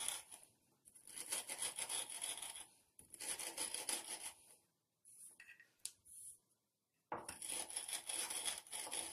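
Rolling pin rolled back and forth over dry-roasted cumin seeds on a stone board, crushing them with a gritty rubbing sound. It comes in strokes of a second or two, with a break of about two seconds after the middle.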